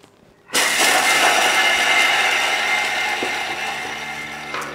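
Thermomix food processor running its blade at speed 7 for a four-second chop of shallot, garlic and toasted sunflower seeds. It starts abruptly about half a second in, runs steadily, and drops off near the end as the timer runs out.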